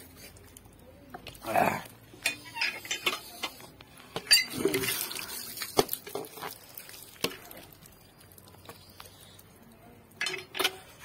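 Dishware clattering and knocking as a plate is washed. The sharp knocks come irregularly, busiest about two seconds in and again around four to five seconds in, with a few more near the end.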